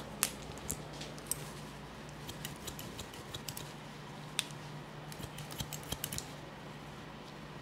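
Hair-cutting shears snipping through hair in short, crisp, irregular snips, which thin out about six seconds in. A low steady hum runs underneath.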